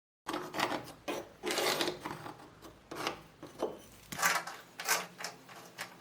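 Rasping strokes of a hand tool working wood, about ten of them at an uneven pace, beginning just after the start.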